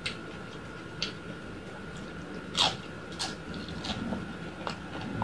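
A person chewing roast pork (lechon) with the mouth full. It makes a string of sharp crunches and wet mouth smacks at irregular intervals, the loudest about two and a half seconds in.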